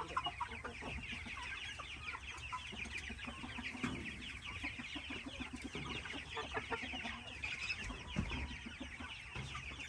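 A flock of chickens, many of them young birds, clucking and cheeping continuously, with many short high calls overlapping.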